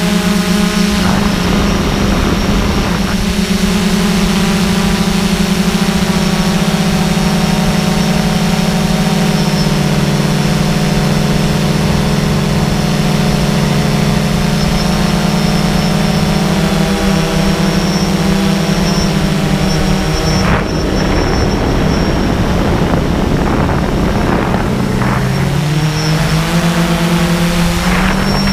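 Quadcopter drone's motors and propellers buzzing steadily, heard through its onboard camera, the pitch dropping and shifting several times as it manoeuvres. Gusts of wind noise hit the microphone about a second in and again around two-thirds of the way through.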